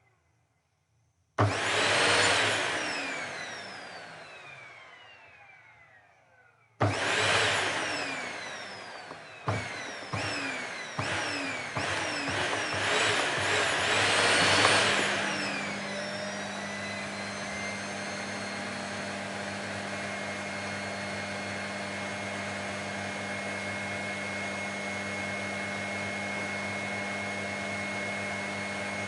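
Vacuum cleaner switched on and off several times, its motor winding down in falling pitch each time it is cut. Near the middle it is left on and settles into a steady hum.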